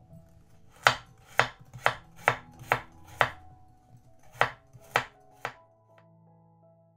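Chef's knife slicing a carrot into rounds on a bamboo cutting board: six sharp chops about half a second apart, a short pause, then three more.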